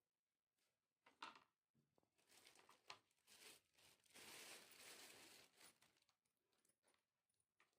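Near silence with faint rustling, a light click about a second in, and a longer stretch of soft rustling in the middle.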